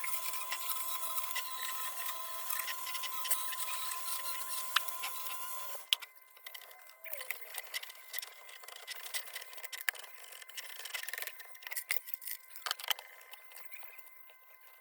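Small rotary tool running with a pointed bit, scrubbing in the corners of an old kerosene heater's metal parts. It runs with a steady whine and hiss for about six seconds, then goes much quieter, with scattered light clicks and scrapes against the metal.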